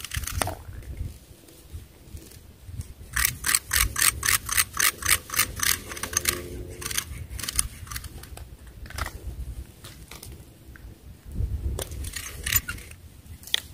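Fishing reel clicking quickly and evenly, about five clicks a second for some three seconds, with a few more clicks near the end. Wind rumbles on the microphone throughout.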